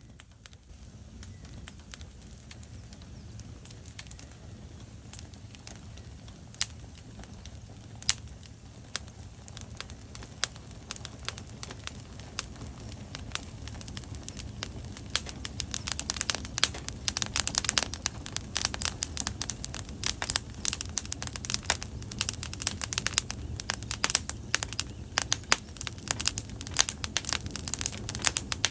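Fire crackling in a fireplace: a steady low rumble of flames with sharp pops and snaps, scattered at first and coming thick and fast from about halfway through.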